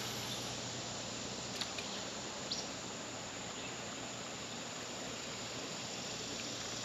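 Steady outdoor background noise at a creek: an even hiss with a few faint, brief ticks.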